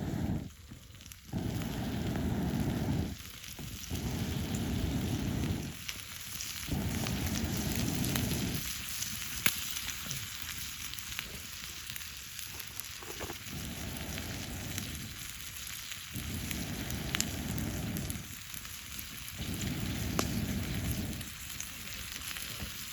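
Food sizzling over a campfire, with sharp crackles from the burning wood. A low rumble comes and goes in blocks of a second or two.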